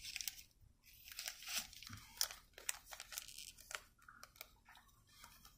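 Faint rustling and crinkling with scattered light ticks as trading cards are handled.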